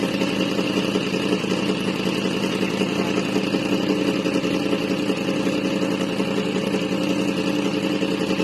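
Yamaha MT-10's crossplane inline-four engine idling steadily through a newly fitted SC Project aftermarket exhaust.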